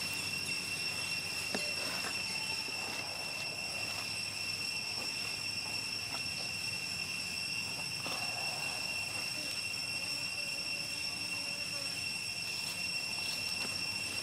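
Steady high-pitched insect drone, a constant whine that holds unchanged throughout, with a few faint soft ticks beneath.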